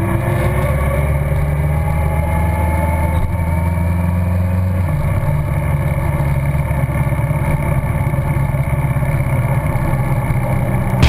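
Kawasaki Concours 14's inline-four engine running steadily under way, heard from the rider's position. Its note rises slightly over the first few seconds and changes pitch about five seconds in.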